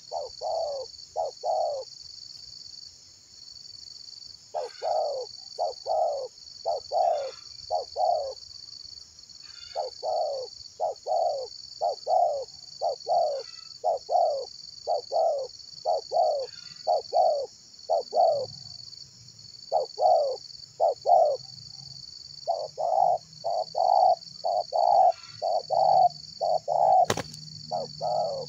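Spotted doves cooing: phrases of three or four short, low, falling notes repeated every couple of seconds. Behind them is a steady, high, pulsing insect drone, and there is a single sharp click near the end.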